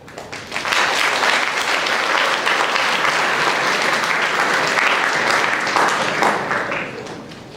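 An audience applauding, starting about half a second in, holding steady for several seconds and tapering off near the end.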